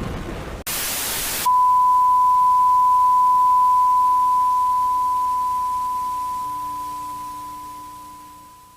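A short burst of loud static, then a single steady electronic tone near 1 kHz that comes in about a second and a half in and slowly fades away over the next seven seconds.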